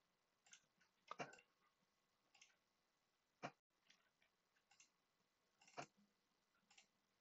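Near silence broken by a few faint, scattered computer mouse clicks, the clearest about a second in, midway, and near the end.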